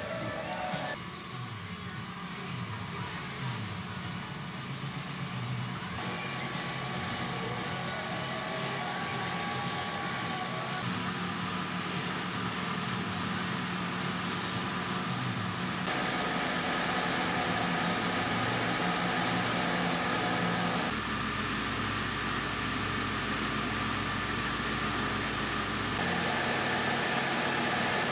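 Wabeco D6000 lathe running, its spindle driven by an inverter-fed three-phase motor through a belt countershaft: a steady running hum with a high whine. The pitch of the whine shifts abruptly every few seconds as the spindle speed goes from about 200 to 700 rpm.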